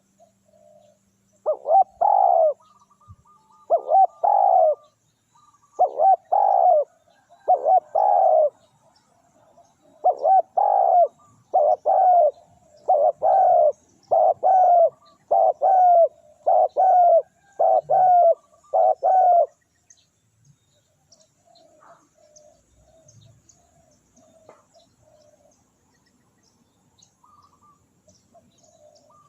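Spotted dove cooing: a long run of loud, repeated coo phrases at about one a second, which stops about two-thirds of the way through, leaving only faint cooing.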